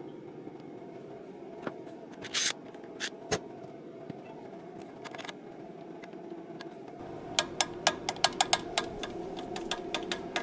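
Light metallic clicks and taps from metal parts being handled on a fuel injection pump, with a quick run of clicks in the second half, over a steady low background hum.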